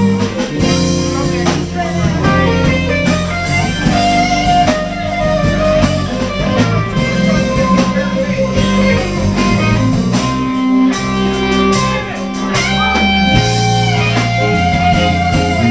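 Blues band playing live: electric guitar over bass and drum kit, with no singing.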